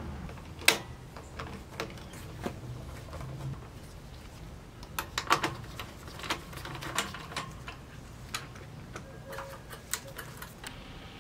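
Hand tools at work on a small engine's air filter housing: irregular clicks and light taps of a ratchet wrench and screwdriver on metal and plastic, with a quick run of clicks about five seconds in.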